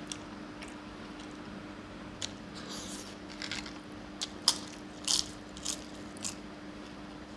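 Crisp fried papad being bitten and crunched: a string of sharp crunches from about two seconds in, loudest in the middle, dying out near the end. A faint steady hum sits underneath.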